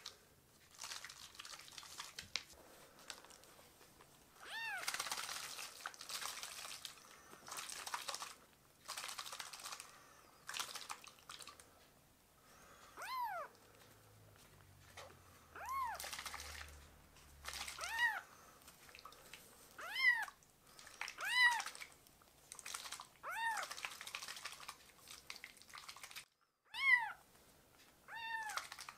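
Young tabby kitten meowing repeatedly, about nine short high cries that rise and fall in pitch. A hungry kitten begging for milk. Soft rustling of cloth comes in between the cries.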